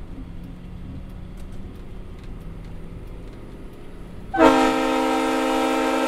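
Truck diesel engine and road noise as a low rumble, then about four seconds in a truck-mounted Leslie Supertyfon S3L three-chime train air horn starts blowing, a loud steady chord held to the end.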